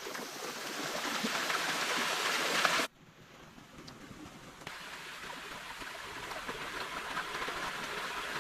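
Steady rushing of a stream, a noisy hiss with no distinct tones and a few faint clicks. It cuts off abruptly about three seconds in and swells back up.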